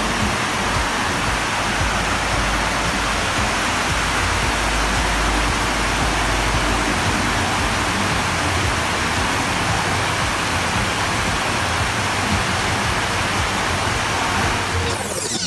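Heavy rain falling steadily, an even hiss. Just at the end, a falling whoosh comes in.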